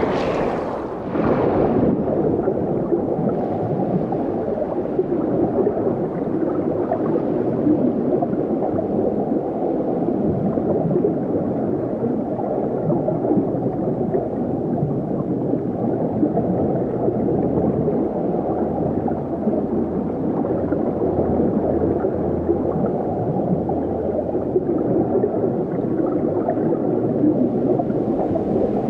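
Water gurgling and bubbling continuously with a dense, muffled rush, after a brief whoosh at the start.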